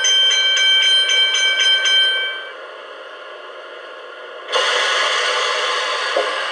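Sound effects from the loudspeaker of a Lenz DCC sound decoder in an O gauge DB Br144 electric locomotive model. A rapid bell-like ringing at about four strokes a second stops a little over two seconds in. About two seconds later a loud hiss starts suddenly and slowly fades.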